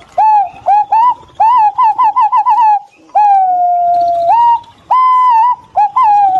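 Green pigeons whistling: short rising notes, a quick run of warbling notes, then a long drawn whistle that slowly falls, followed by more short notes.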